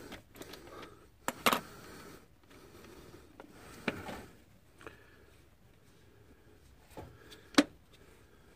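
Hand tools clicking and knocking against metal while a battery cable is worked back onto its terminal lug: a few separate sharp clicks, the loudest near the end.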